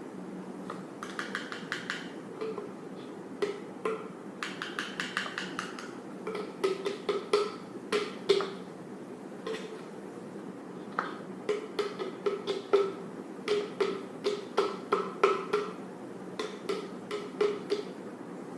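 Runs of light taps and clicks, several a second with short pauses between them: baking soda being scooped and tipped into a container.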